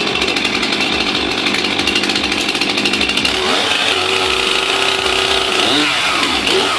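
Gasoline chainsaw running at high revs, its engine note shifting up and down in pitch a few times in the second half.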